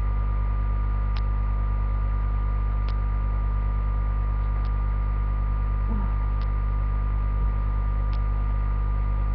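Steady electrical mains hum with a buzzing edge, with a faint short tick repeating about every second and three-quarters.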